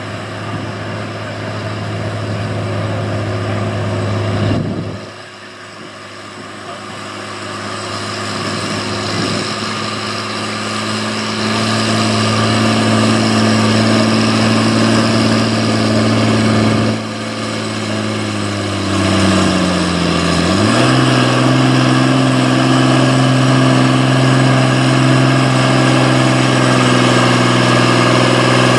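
Farm pulling tractor's engine running hard at steady high revs, its pitch sagging briefly about two-thirds through and then climbing back and holding. The sound drops off abruptly twice along the way.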